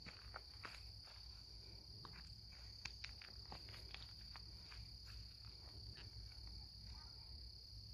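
Near silence with a steady high-pitched insect chorus and a few faint scattered ticks.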